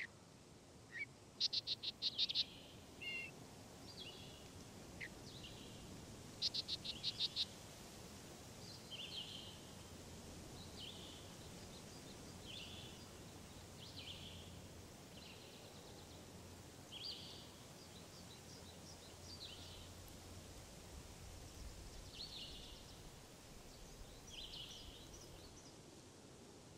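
Outdoor ambience of repeated short, high chirping calls about every second or two, with two loud rapid trills of quick pulses in the first third, over a faint low hum.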